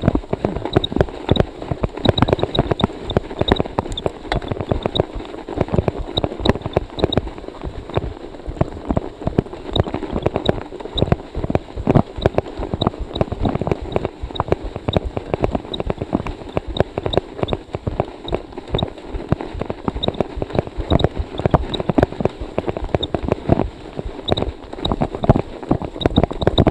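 Scott Speedster CX cyclocross bike rolling through fresh snow: a dense, irregular run of crunching and rattling knocks from the tyres and bike, several a second, as it is pushed hard against the drag of the snow.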